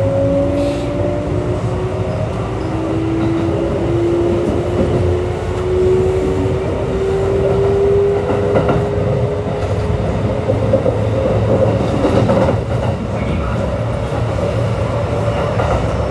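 Kintetsu 3200 series train heard from inside the car end. Its Mitsubishi GTO-thyristor VVVF inverter gives a two-tone whine that rises in pitch as the train accelerates and levels off about halfway through. Under it run steady motor and wheel noise and the car's air conditioning.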